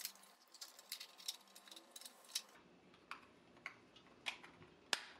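Faint, irregular clicks and taps of a laptop charger's plastic inner covers and outer casing being handled and fitted back together by hand, with one sharper click near the end.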